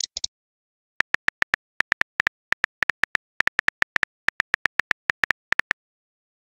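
Keyboard tap sounds of a texting app, one short click per letter as a message is typed, in quick runs of about four to five taps a second. A brief message-sent sound comes at the very start.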